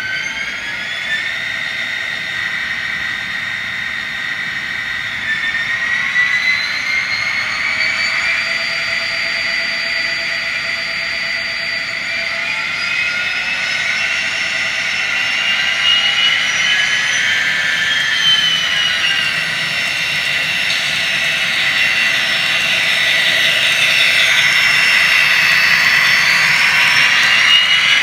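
Sound decoder in an Intermountain N scale Burlington Northern SD40-2 model locomotive playing diesel engine sound through its small speaker: a whining engine note whose pitch glides up and down several times as the throttle changes, growing louder toward the end as the locomotive comes closer.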